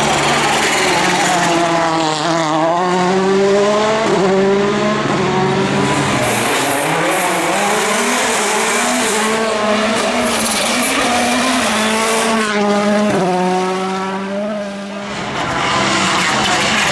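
World Rally Car's turbocharged four-cylinder engine driven hard on a stage, revs climbing and dropping repeatedly through gear changes, with tyre noise. The sound fades briefly near the end, then picks up again.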